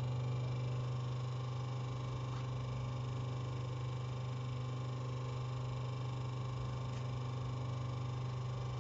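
Air-suspension crimping machine running idle after power-on, a steady low hum with no change in pitch.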